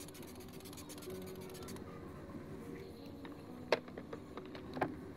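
Quiet room with light handling noise from makeup products, and two short sharp clicks, the second a little over a second after the first.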